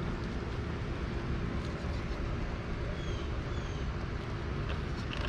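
Redcat Ascent RC rock crawler's Hobbywing Quicrun Fusion motor and geared drivetrain whining steadily at crawling speed as it climbs over rocks.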